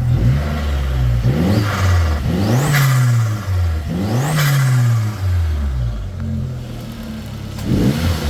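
Turbocharged VW Mk4 Golf GTI engine revved in a few quick blips, each with a rising turbo whistle, and fluttering as the throttle snaps shut. It settles to idle for a couple of seconds, then blips again near the end.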